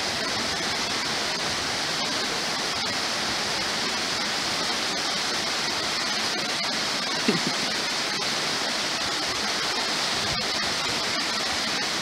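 Natural waterfall rushing steadily, its flow reduced by the dry season. A brief short sound stands out about seven seconds in.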